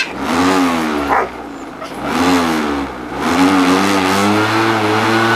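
Corded electric lawnmower motor switched on in short bursts, its whine rising and falling each time, then held running longer near the end.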